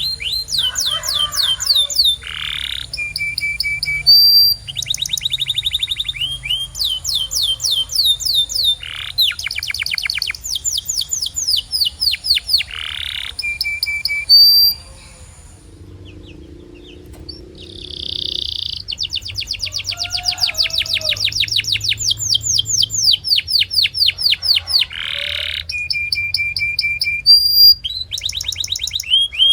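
Domestic canary singing: long runs of fast, evenly repeated trilled notes, broken by short held whistles and buzzy notes. The song stops for about three seconds near the middle, then starts again.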